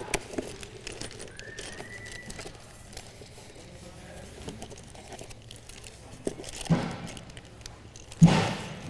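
Plastic zip-lock bags and a cardboard box being handled, with light crinkling and small clicks throughout and two louder bumps near the end. A faint, brief rising whistle-like tone comes in about a second and a half in.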